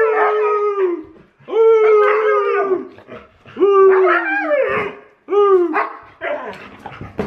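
Huskies howling on cue in a series of long 'woo' calls. There are about four, each roughly a second long, rising sharply and then holding steady, and they break into shorter, ragged yips near the end.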